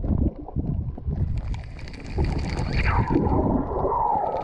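Muffled water noise against an underwater camera: a low, uneven rumble, with a rushing, gurgling hiss coming in about a second and a half in as the diver swims through the water.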